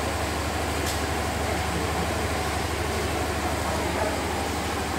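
A steady low engine rumble, like a large engine idling.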